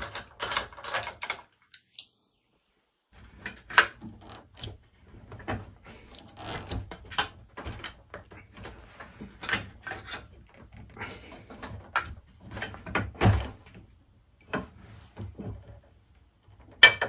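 Allen keys working the screws of an electric scooter's rear suspension: irregular metal clicks, scrapes and small knocks, with a sharper knock about four seconds in and a heavier one near thirteen seconds. A second or so of dead silence comes about two seconds in.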